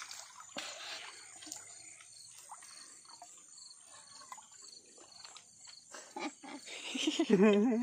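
Night insects chirping in a regular string of short high chirps, with small splashes and clicks of hands working in shallow water. A voice comes in near the end.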